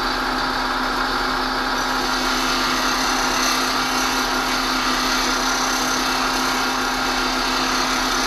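Bench grinder running while a high-speed steel plane iron is held freehand to its wheel: a steady motor hum under a continuous hiss of steel being ground. The bevel is being ground back until the blackened flat on the damaged edge is almost gone.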